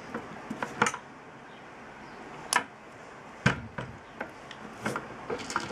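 Scattered clicks and knocks of a red dot sight's rail mount being handled and set on an AR-15's top rail, its cross bar going into one of the rail slots. The loudest is a heavier knock about three and a half seconds in.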